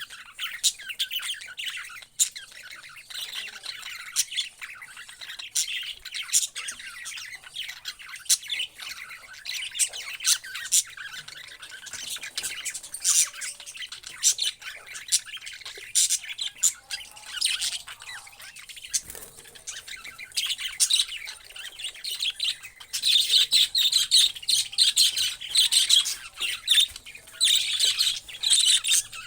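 A group of parrots chirping and squawking in a constant jumble of quick, high calls, getting busier and louder about three-quarters of the way through.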